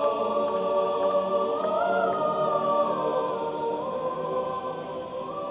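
Choral music: several voices holding long chords that shift slowly in pitch, beginning to fade out in the second half.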